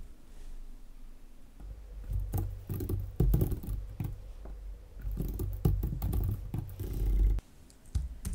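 Typing on a computer keyboard in quick bursts of key clicks with a dull thud under them. The typing stops about a second before the end, followed by a single short click.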